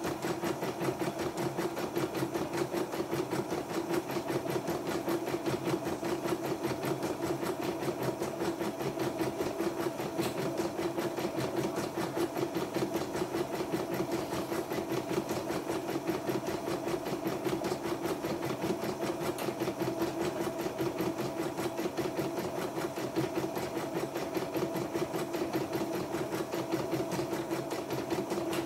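YOKO portable computerized embroidery machine stitching at a steady, fast, even rhythm without stopping. It is on a test run for its thread-break / presser-foot sensor error.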